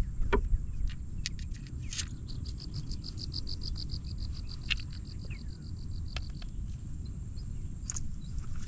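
A marsh animal trilling: a rapid run of even high pulses, about eight a second, for about four seconds in the middle, over a steady low rumble, with a few sharp clicks.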